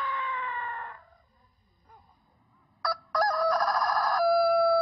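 A Totenko long-crowing rooster ends a long, high, held crow: the pitch slides down and it fades out about a second in. After a pause, another long crow begins about three seconds in, ragged at first, then a steady held tone falling slowly in pitch.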